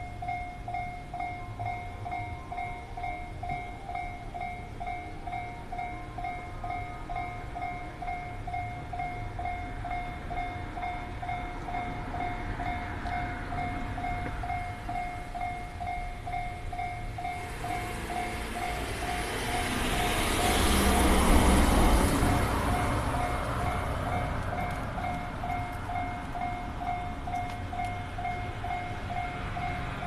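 Japanese railway level-crossing warning bell ringing in steady, even, rapid strokes. A train passes over the crossing, rising from about seventeen seconds in to its loudest a few seconds later, then fading, while the bell keeps ringing.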